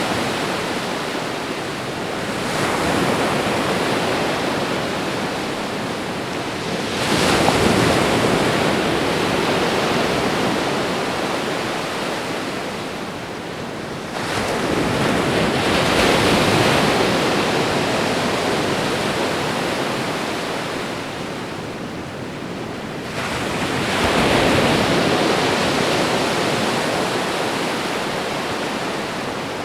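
Ocean waves breaking on a shore: four swells in turn, each surging in and then washing out over several seconds, the second the loudest.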